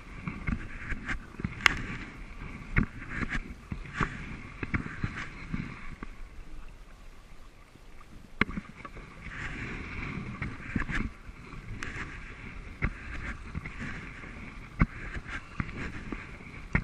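Kayak paddling: water splashing and swishing off the paddle blades in rhythmic surges, with irregular sharp clicks and knocks over the top.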